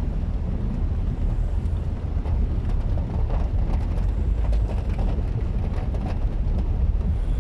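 Steady low rumble inside a Toyota car's cabin while it drives through rain and floodwater, with faint scattered ticks of rain on the car.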